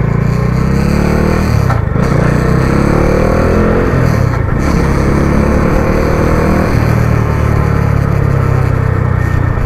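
Bajaj Dominar 400's single-cylinder engine running as the motorcycle is ridden, its pitch rising and falling with the throttle.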